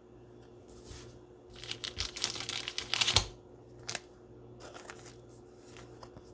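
Trading cards being handled and shuffled: a run of quick rustling and clicking from about one and a half to three seconds in, with a couple of soft knocks, then a few lighter ticks.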